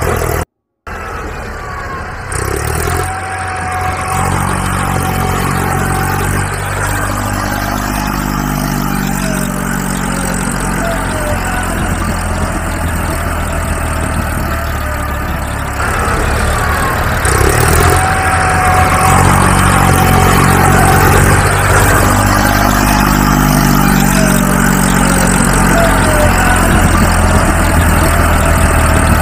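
Engine sound running steadily with swells in pitch, in a pattern that repeats about every ten seconds, like a looped recording; it gets louder about halfway through.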